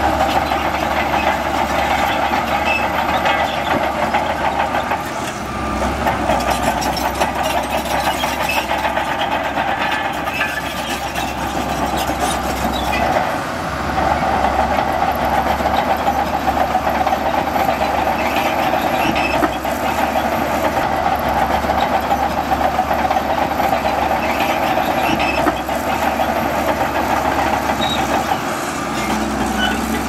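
Shantui bulldozer working, its diesel engine running steadily under load with a constant mechanical din that dips briefly three times.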